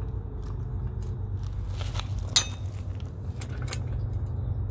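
Light metallic clicks and clinks of screws being handled while fitting a handrail post's base plate, with one sharp click a little over two seconds in, over a steady low rumble.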